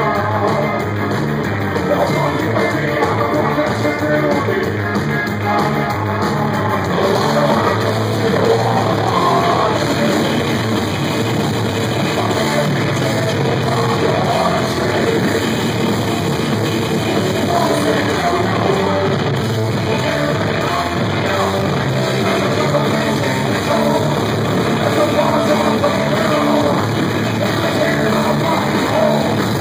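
A rock band playing loud and without a break: electric bass, keyboard and drums, with singing over them.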